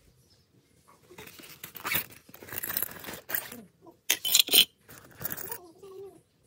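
Small metal hand tools (a spark plug wrench, a combination spanner and a screwdriver) clinking and rattling together as they are handled in a zippered fabric tool pouch. It comes in irregular short bursts, loudest about four seconds in.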